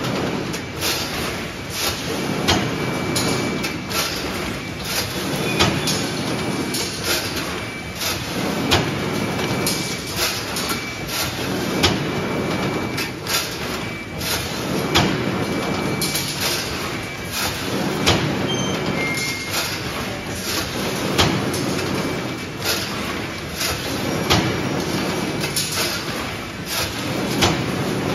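Automatic hinge joint field fence machine running through its weaving cycle: a continuous clatter of many clicks, peaking in a louder clank about every three seconds.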